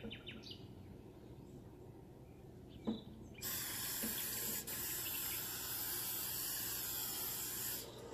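A steady hiss, like a spray or running water, starting about three and a half seconds in, running for about four seconds and cutting off suddenly, after a single click.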